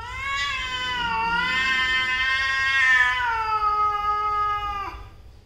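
A domestic cat's caterwaul: one long, wavering yowl lasting about five seconds that cuts off sharply near the end, the threat call of two cats facing off in a standoff.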